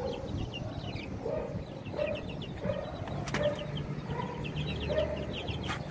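Chicks peeping in quick runs of short falling chirps, over a chicken clucking low at a steady pace. Two sharp clicks, one about halfway and one near the end.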